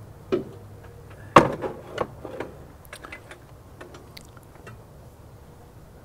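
A few light metallic clicks and knocks, the loudest about a second and a half in, then faint scattered ticks: tools on the engine as its crankshaft is turned over by hand to bring a piston up the cylinder.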